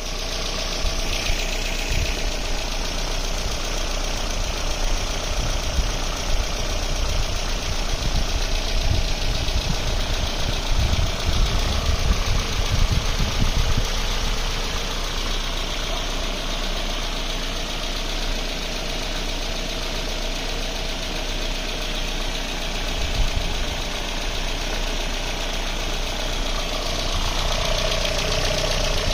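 Mercedes-Benz M102 2.0-litre eight-valve four-cylinder engine running steadily at idle on a test stand, fuel-injected by a homemade ECU in place of its original carburettor, exhausting through a bare downpipe.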